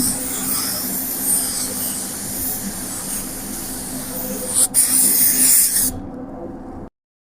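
Paint spray gun hissing as epoxy primer is sprayed onto a car fender, over a steady low hum. The hiss stops about six seconds in, and then the sound cuts out completely.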